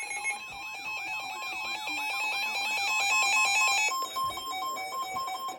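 Emergency Alert System two-tone attention signal sounding, the alarm that opens a broadcast weather warning. For about the first four seconds it is overlaid by rapidly switching higher beeping tones and a tone sweeping up and down about twice a second. The steady two-tone then continues alone and cuts off just before the end.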